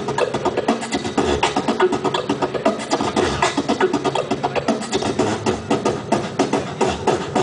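Live beatboxing into a handheld microphone, amplified through stage loudspeakers: a fast, continuous stream of vocal drum sounds, with sharp clicks and snares over deep kick-drum thumps.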